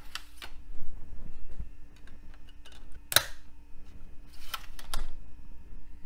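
Plastic clicks and knocks from a Dell Inspiron 8000 laptop's slim CD drive tray being handled: pulled open at the start, a CD laid onto it about 3 s in, and the tray pushed shut with two clicks near the end.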